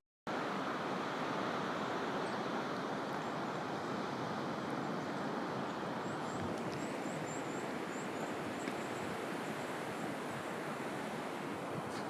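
Strong wind rushing steadily through the forest. About six seconds in, a short run of faint, high chirps sounds over it.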